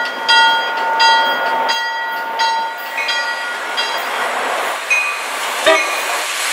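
Approaching diesel commuter train's locomotive bell ringing in even strokes about every 0.7 s. The bell fades out about three seconds in as the noise of the train grows louder, with a sharp click near the end.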